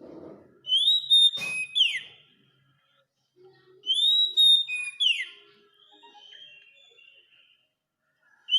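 Oriental magpie-robin (kacer) singing: loud, clear whistled phrases, each a rising note followed by a quick falling whistle, come about a second in and again about four seconds in, with softer twittering between. A sharp click comes a little over a second in.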